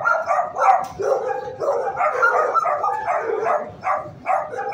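Many dogs barking in a shelter kennel block, a near-continuous run of overlapping barks several times a second.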